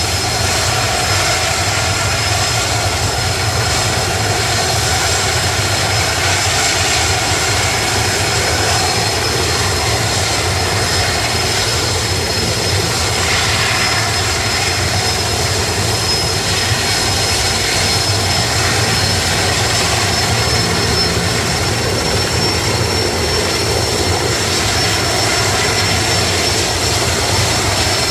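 Erickson S-64 Air-Crane heavy-lift helicopter running on the ground with its rotors turning: a steady, even roar of its twin turboshaft engines and rotors, with a constant high turbine whine over it.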